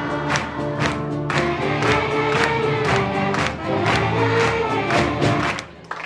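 Children's choir singing with a school orchestra of clarinets, violins and drum kit, over a steady drum beat about twice a second. The music stops just before the end.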